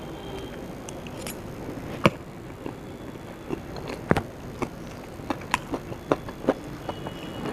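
Close-up eating sounds: two sharp crunches or clicks about two seconds apart, then a run of quieter clicks about twice a second, as of chewing.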